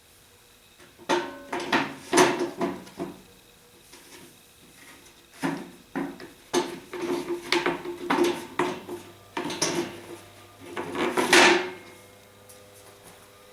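Knocks, clunks and clatter of hard objects being handled and set down in two busy spells, with a longer scrape a little past the middle of the second spell.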